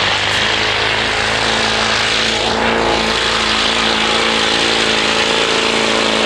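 Modified Duramax 6.6 L V8 turbodiesel pickup engine running flat out under heavy load while pulling the sled, a loud, steady drone that holds an even pitch.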